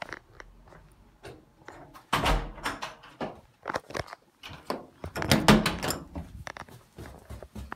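Irregular knocks, clicks and thumps of someone moving down an indoor stairwell, with two louder bursts of thumping about two seconds and five and a half seconds in.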